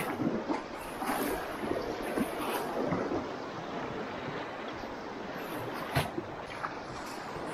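River rapids rushing around an open canoe, with waves splashing and slapping against the hull as it is paddled through. There are several louder splashes in the first few seconds and a sharp slap about six seconds in.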